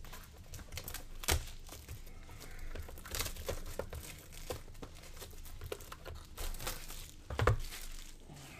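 Foil trading-card pack wrapper crinkling and being crumpled in the hands, with irregular sharp crackles, the loudest about a second in and again near the end.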